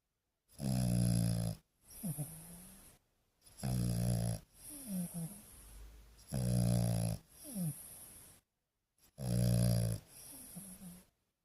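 A sleeping French Bulldog snoring: four loud, rattling snores about three seconds apart, each followed by a quieter breath with a short falling squeak.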